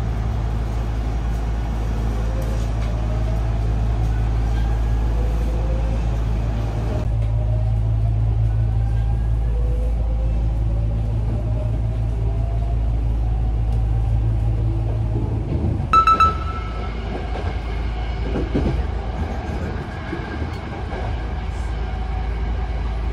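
Hankyu electric train running, with a steady deep rumble and a motor whine that rises in pitch again and again as the train gathers speed. About two-thirds of the way through a short, sharp high tone rings out, and the rumble drops a little after it.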